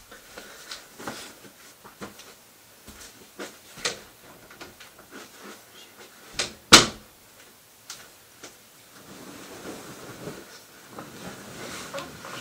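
Scattered soft knocks and footfalls, then a bedroom door handled, giving two sharp knocks of the door and latch a little past the middle. Near the end, a soft rustle of bedding.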